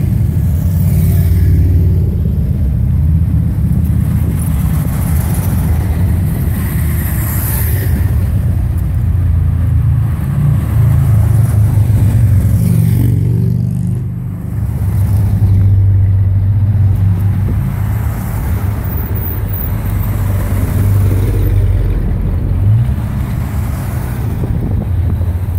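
Engines of a police touring motorcycle and antique police cruisers running at walking pace as they pass close by. The result is a steady low rumble that swells and eases slightly as each vehicle goes by.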